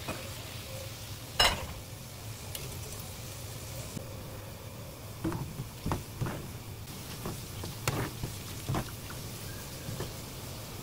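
Garlic scapes blanching in a wok of boiling salted water: steady bubbling. A sharp metal clank comes about a second and a half in, then a handful of light knocks as a mesh strainer stirs the scapes against the pan.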